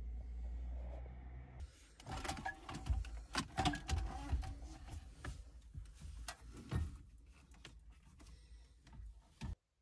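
Plastic clicks, knocks and scraping as the factory Toyota CD head unit is worked loose and slid out of its dashboard opening, busiest about two to four seconds in. A low rumble comes before it, and the sound cuts off abruptly near the end.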